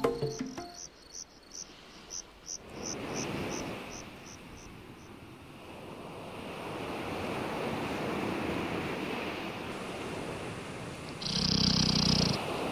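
Crickets chirping, about three chirps a second, for the first few seconds, giving way to the steady wash of ocean surf that swells and holds. Near the end a loud sound lasting about a second stands out over the surf.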